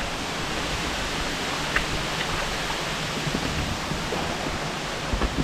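Steady rushing hiss of a waterfall, with a few faint clicks.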